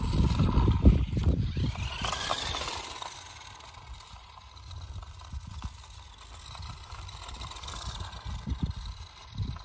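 Small electric motor of a toy RC monster truck whining as the truck drives on asphalt, its pitch sweeping up and down about two seconds in. Low rumbling buffeting is the loudest sound for the first two seconds and returns near the end.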